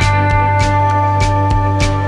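Background music with guitar over a steady beat.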